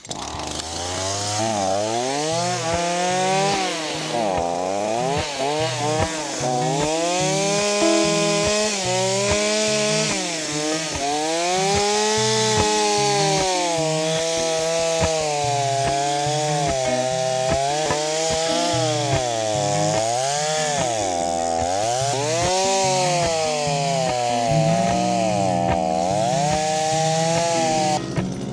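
Gas chainsaw running and cutting through logs, its engine pitch rising and dipping over and over as it revs up and bogs down in the wood.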